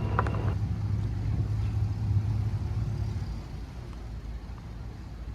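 Boat engine running with a steady low drone, which drops in level about three seconds in.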